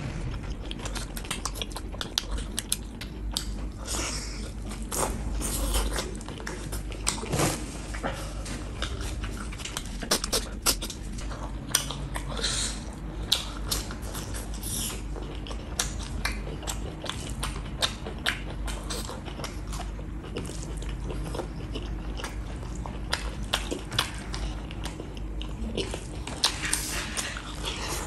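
A person chewing and biting a mouthful of rice and beef eaten by hand, with many irregular short wet clicks and smacks of the mouth.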